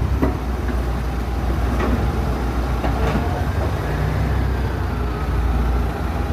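Crawler bulldozer's diesel engine running steadily, with a few sharp metallic clanks.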